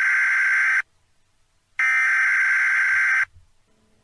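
Emergency Alert System broadcast header: two bursts of buzzing digital data tone. The first stops under a second in; the second starts about two seconds in and lasts about a second and a half.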